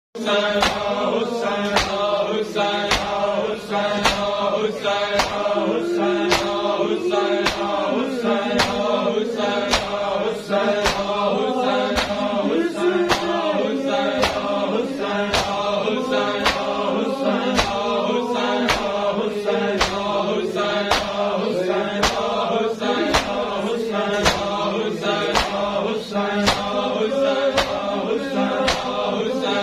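Shia matam: a crowd of men beating their chests with open hands in unison, sharp slaps about two a second, under a steady chanted noha of male voices.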